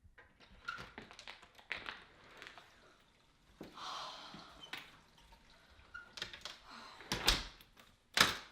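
Scattered knocks, taps and clatter of objects being handled, with a brief rushing hiss about four seconds in and two louder thuds near the end.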